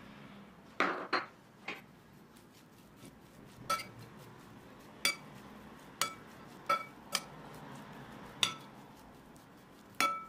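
A metal spoon clinks against a ceramic bowl while stirring grated raw potato: about ten irregular clinks, each followed by a brief ring from the bowl.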